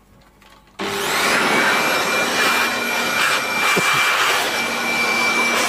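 Electric air blower switched on about a second in and running at steady full speed, a loud rush of air with a steady high whine, blowing dust out of a CRT TV's chassis.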